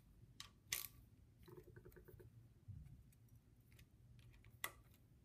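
Near silence with a few faint clicks and a short quick run of faint ticks about one and a half seconds in, from hands and small tools working on the rocker arms and a steel ruler on the engine's cylinder head.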